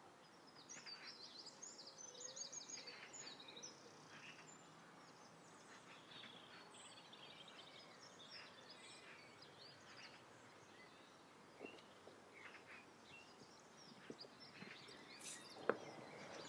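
Faint outdoor ambience with small birds chirping and trilling on and off, and a few light clicks near the end.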